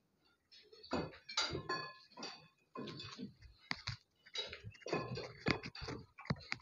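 Metal clinking and clanking: a quick, uneven run of short ringing strikes, metal on metal.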